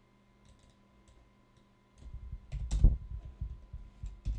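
Clicking of a computer mouse and keyboard, faint at first. From about halfway the clicks get louder, with low thumps against the desk, the loudest about three seconds in.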